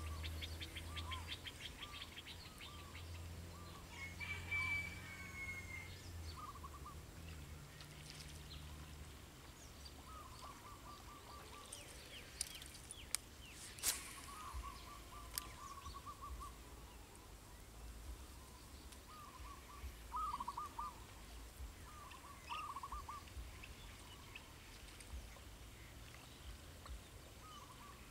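Birds calling: a short call repeated every few seconds, with some higher chirps in the first few seconds. A few sharp clicks come about halfway through.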